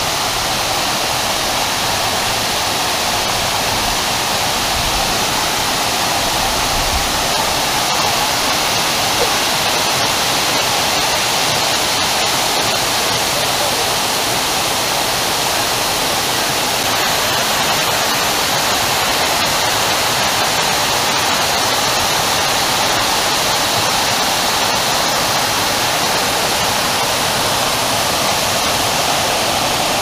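Waterfall pouring: a steady, unbroken rush of falling water.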